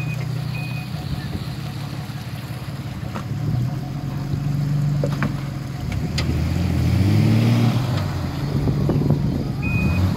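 Off-road 4x4 engine idling, its revs rising briefly about seven seconds in, with a few sharp clicks and knocks. A steady electronic beeping, roughly two beeps a second, starts near the end.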